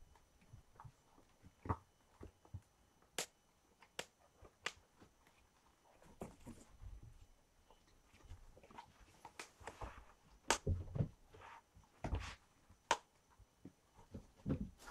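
Scattered sharp clicks and taps with a few soft thumps, irregularly spaced.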